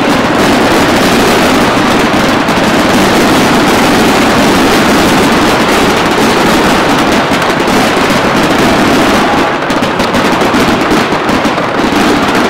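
Dense barrage of fireworks: an unbroken rapid run of bursts and crackling, loud throughout and easing slightly near the end.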